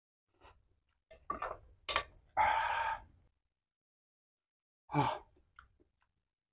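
A person eating spicy food: a few wet smacks and clicks of chewing and slurping, then a long breathy 'haah' exhale about two and a half seconds in and a shorter voiced gasp near the five-second mark. The exhale and gasp are the reaction to the burn of raw chilli sambal.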